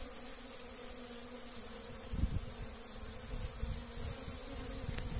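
Many Africanized honeybees buzzing steadily as they forage for pollen on licuri palm flowers, an even low hum. A brief low rumble comes about two seconds in.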